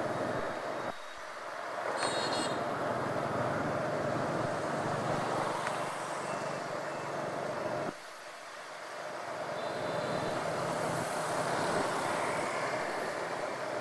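Riding a motor scooter through city street traffic: the scooter's engine and road and wind noise run steadily among passing motorbikes and cars, dipping in loudness about a second in and again about eight seconds in. A short high-pitched note sounds about two seconds in.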